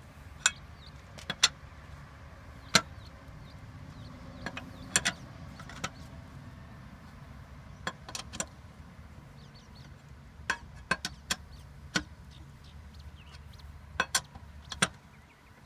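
Metal lug wrench clinking and clanking against the wheel's lug nuts as they are tightened down on a spare tire: sharp, irregular clinks, often two in quick succession, over a steady low rumble.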